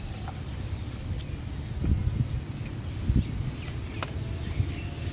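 A cast net being handled on grass as fish are picked from it: low rustling and bumping, with one sharp click about four seconds in. A steady high-pitched insect drone sits behind it, and a bird gives a short chirp near the end.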